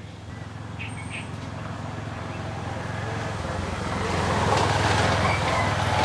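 A vehicle passing by: a road rumble that swells, loudest about five seconds in. Two short bird chirps about a second in.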